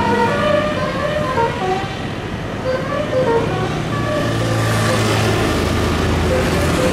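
A bus's basuri musical horn playing a tune of short notes that step up and down in pitch. About four seconds in, the bus's engine grows loud as it drives past.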